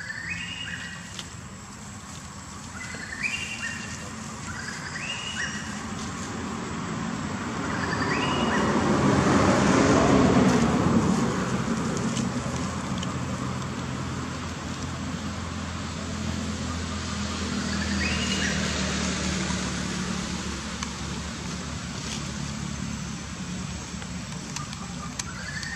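A motor vehicle drives past: its noise swells to a peak about ten seconds in and fades, leaving a low engine hum that dies away later. Short rising high-pitched chirps sound now and then.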